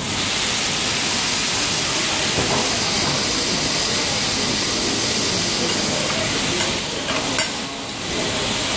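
Water poured onto a hot teppanyaki griddle hissing and sizzling loudly as it flashes to steam, starting suddenly. A few sharp clicks come about seven seconds in, as the hiss briefly dips and then picks up again.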